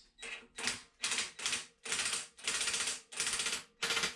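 Ratchet wrench tightening the bolts of a water pump pulley, its pawl clicking in quick runs on each backswing, about two runs a second.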